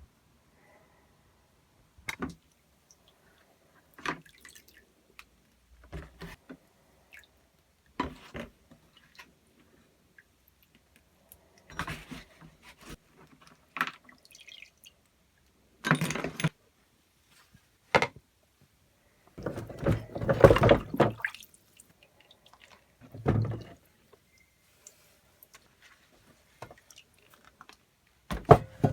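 Intermittent clinks, knocks and short scrapes of metal parts being handled, about a dozen separate sounds, with a longer, louder clatter about twenty seconds in.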